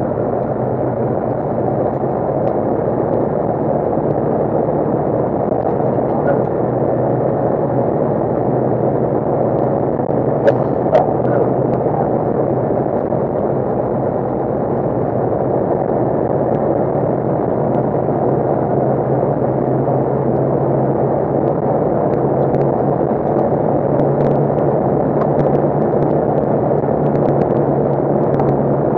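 Side-by-side UTV driving on a gravel road: a steady engine drone with the rumble of tyres on gravel. Two sharp knocks come about ten and eleven seconds in.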